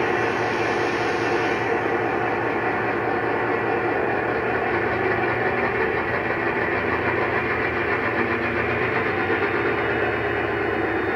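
DCC sound decoder running a Class 68 diesel engine sound file through an EM2 speaker in a model locomotive, with a steady engine note throughout. A hiss sounds over it in the first second or two.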